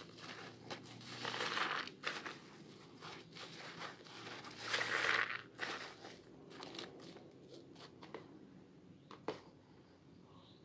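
Hands kneading and squeezing a soaked bar of soap in a basin of thick lather, making wet squishing sounds that come in uneven bursts, the loudest about five seconds in. A single sharp click a little before the end.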